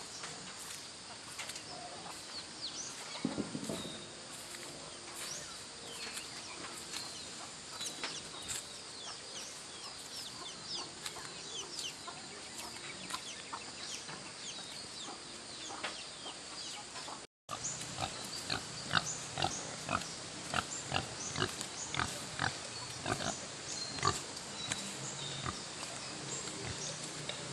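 Pigs grunting and squealing in short, irregular calls over a steady high insect drone, with a brief dropout in the sound about two-thirds through.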